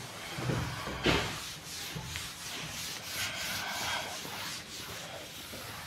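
A cloth duster rubbing chalk off a blackboard in repeated wiping strokes.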